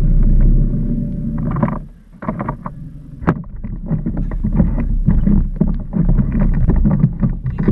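Small boat on the water: a steady low hum stops about two seconds in, then irregular knocks and splashes follow.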